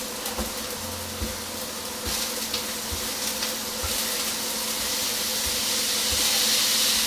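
Onions and banana slices frying in a pan, the sizzle growing steadily louder, with a few light clicks of a knife cutting over the pan and a steady low hum underneath.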